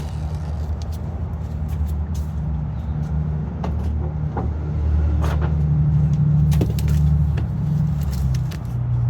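Low, steady rumble of a motor vehicle engine running, louder from about five seconds in and easing off near the end, with a few light clicks and knocks.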